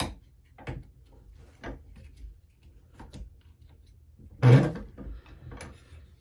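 Handling knocks and clicks as an AR-10 bolt is worked in a wooden ejector-compression jig held in a bench vise: about six irregular knocks, the loudest a heavier thud about two-thirds of the way through.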